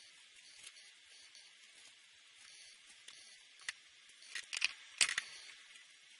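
Felt-tip alcohol marker rubbing across paper in a soft, steady hiss. About four to five seconds in come several sharp clicks, the loudest near the end, as the red marker is put down and a yellow one picked up.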